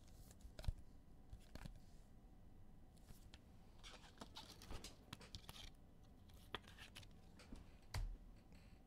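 Faint rustling and scattered light clicks of trading cards being handled, with a soft thump near the end.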